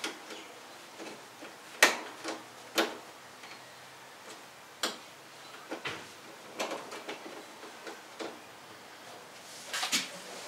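Irregular clicks and light knocks of hand work fastening a replacement tail light assembly into the car body, screws being tightened and plastic parts clicking into place. The sharpest knocks come about 2 s in and near the end.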